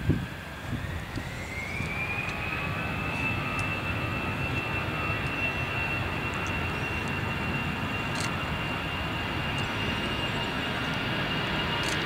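Airbus A320's twin CFM56 jet engines spooling up to takeoff power: a whine rises in pitch over the first two seconds and then holds steady above a rumble that slowly builds as the airliner starts its takeoff roll. A brief knock at the very start.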